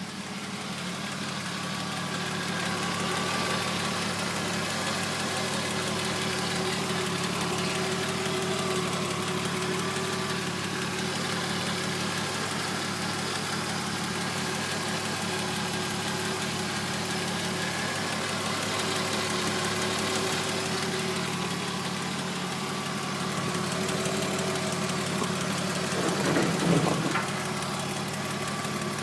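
BMW E36 325i's 2.5-litre straight-six running at a steady idle, with a rhythmic clacking from the exhaust manifold area that speeds up and slows with engine speed. The hydraulic lifters are already new, so the clack is not lifter noise. Near the end there is a brief louder noise.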